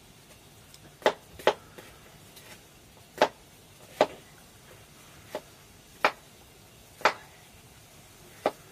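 A knife chopping pieces of food: eight sharp chops at uneven intervals, roughly a second apart, one of them softer.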